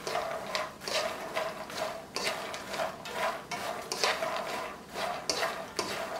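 Slotted wooden spatula stirring puffed makhana in ghee in a frying pan, with repeated scraping, rustling strokes about twice a second as the seeds tumble. The makhana are being roasted on a slow flame until crisp.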